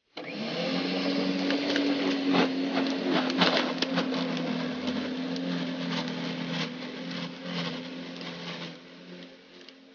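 Corded Einhell electric lawn scarifier running as it is pushed over the grass, its motor humming steadily while the spinning tines rake out thatch with scattered clicks and rattles. The sound fades somewhat near the end.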